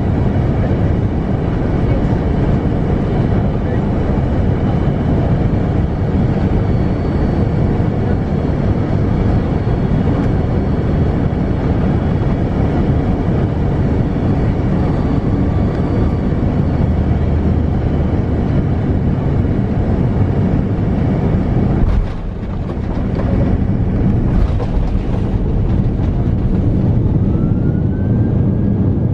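Steady roar inside an Airbus A330-200's cabin on final approach. About 22 seconds in, the wheels touch down with a thump and the noise briefly drops, then runway rumble follows. Near the end an engine whine rises.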